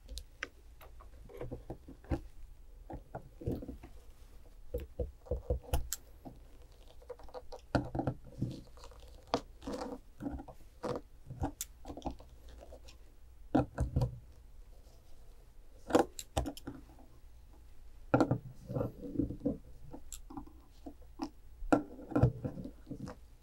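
Irregular light clicks, taps and short scrapes of stiff 3.5 mm craft wire being pried apart with flat-nose pliers, the wires knocking against each other and the pliers.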